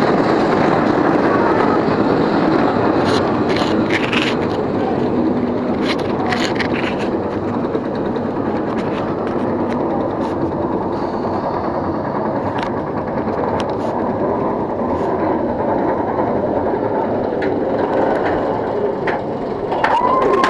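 A B&M winged roller coaster train climbing its chain lift hill: the lift chain and train give a steady clattering rattle, with a cluster of sharp clicks about three to seven seconds in.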